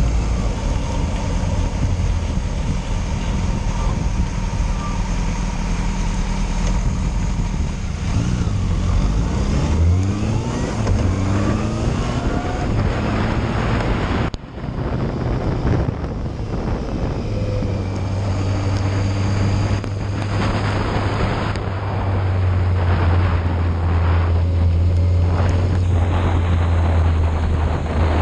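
Yamaha Fazer motorcycle riding on wet roads, with the engine note climbing as it accelerates about eight to thirteen seconds in. The sound drops out briefly around fourteen seconds, then the engine runs steadily, under constant wind and road noise.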